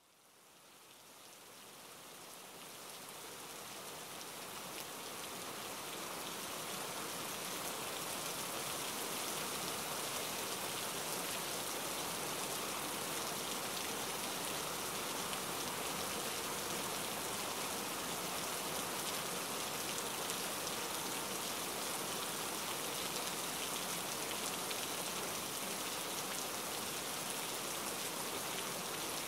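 Steady rain falling, fading in from silence over the first several seconds and then holding even.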